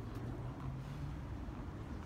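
Steady low rumble of background room noise in a quiet lull, with a faint low hum through roughly the first second and a half.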